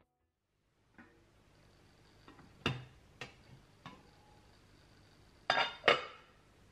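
Stainless-steel steamer tray clinking and knocking against the rim of an electric steamer as it is set in place. Several light clicks are followed by two louder clanks close together near the end, each with a brief metallic ring.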